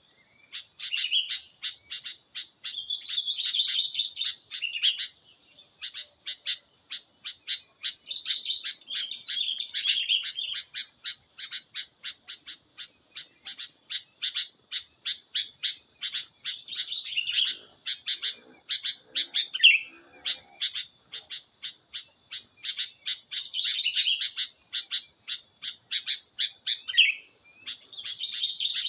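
Birds calling: a steady run of sharp chirps, two or three a second, broken now and then by short warbling phrases. Behind them runs an unbroken high insect drone.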